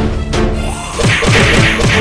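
Dramatic background music with heavy thudding hits, and several quick falling tones about a second in.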